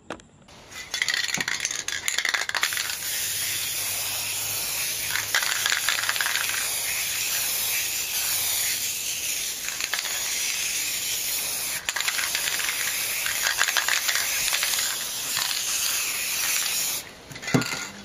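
Aerosol spray paint can spraying in a long, steady hiss, with a brief pause partway through, and a short knock near the end.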